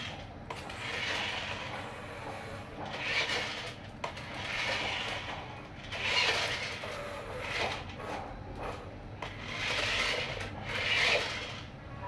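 Toy RC dump truck's electric drive motor and gears whirring in repeated short bursts, about once every second or two, as its plastic wheels scrape across a ramp and a concrete floor.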